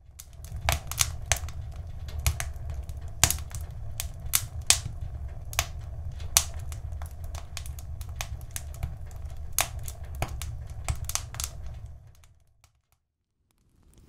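Wood fire crackling: irregular sharp pops and snaps from burning firewood over a low steady rumble. It fades in at the start and fades out about two seconds before the end.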